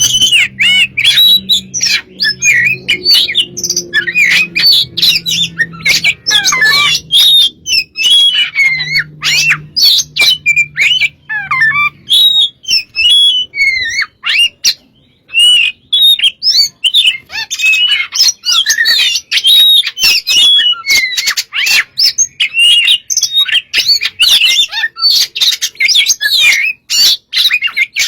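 Oriental magpie-robin (kacer) singing loudly and without a break: a rapid, varied stream of whistled notes and sharp clicking calls, easing briefly about halfway through before resuming.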